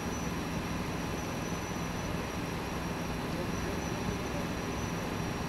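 A vehicle engine idling with a steady low rumble, over a constant wash of city street noise.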